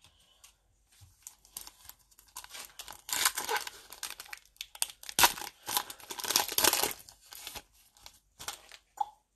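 A Mosaic basketball card pack's shiny wrapper being torn open and crinkled by hand: a run of crackling rustles and tears, thickest from about three to seven seconds in.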